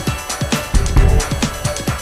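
Electronic dance music with a steady beat and heavy bass pulses.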